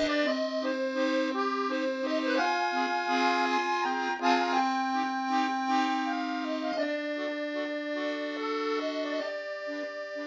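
Background music: a tune of held notes that change every half second or so over a steady low drone note.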